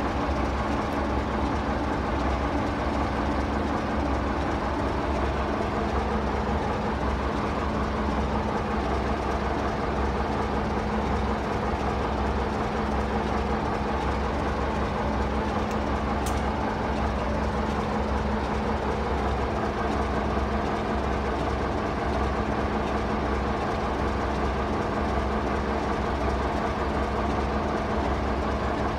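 BR Class 33 diesel locomotive 33201 idling while standing at the platform, its Sulzer eight-cylinder engine giving a steady drone with a low, even throb.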